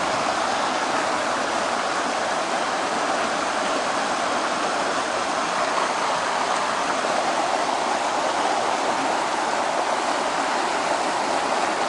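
Steady rush of flowing stream water, an even hiss that holds at the same level throughout.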